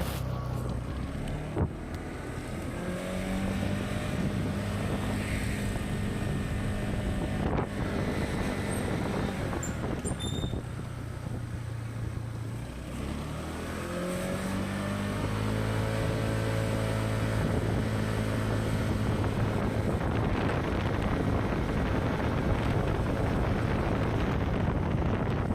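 Like Colombo 150 scooter's engine running on the road, its pitch rising as it picks up speed, dropping about halfway through, then rising again. Wind noise on the microphone grows toward the end.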